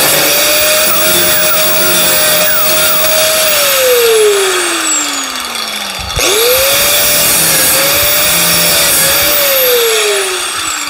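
Angle grinder grinding through tack welds along the edge of a sheet-metal panel, throwing sparks; the motor runs steadily with slight dips under load. About three and a half seconds in it is released and winds down, it is started again about six seconds in, and it winds down again near the end.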